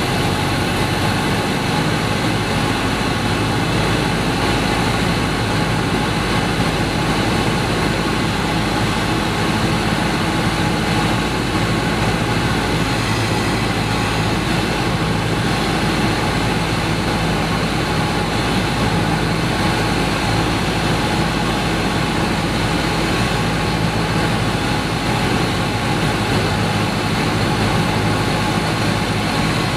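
Single-engine light aircraft's piston engine and propeller, heard from inside the cabin, running with a steady drone on final approach to land.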